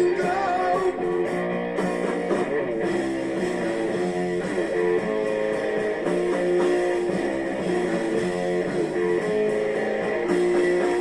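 Guitar-led music playing steadily, with plucked and strummed guitar.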